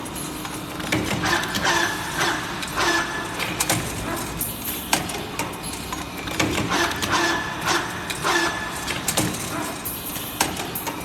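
CNC wire bending machine working: short whines from its servo-driven feed and bending heads repeating every second or so, over a steady machine hum, with sharp clacks now and then.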